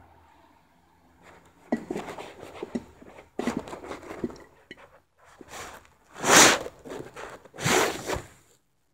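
Close-up handling noise: irregular crackling, scraping and tapping, with two loud rushing bursts about a second and a half apart near the end.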